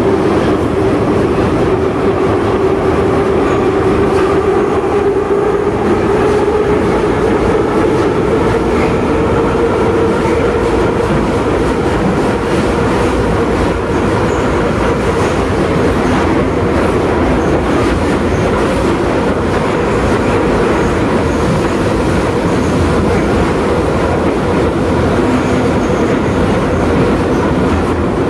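Metro train running between stations, heard from inside an 81-717/714 car: a loud, steady rumble of wheels on rails. Over it is a steady whine that rises slightly in pitch over the first several seconds, then holds.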